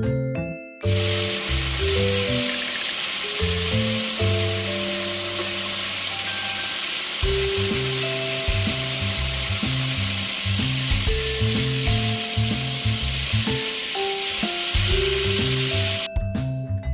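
Long green peppers with salted beans sizzling steadily as they are stir-fried in a hot pan. The sizzle starts abruptly about a second in and cuts off suddenly near the end, over background music.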